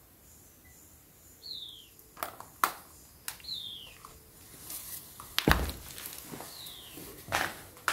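Footsteps with scattered knocks and scuffs on a debris-strewn concrete floor, the loudest a deep thump about halfway through. A bird gives a short descending whistle three times.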